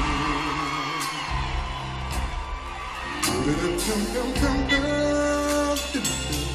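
Live R&B band with a male lead singer holding long, sliding notes over keyboards and bass guitar, recorded from the audience on a cell phone. The deep bass drops out for a couple of seconds in the middle and comes back about four seconds in.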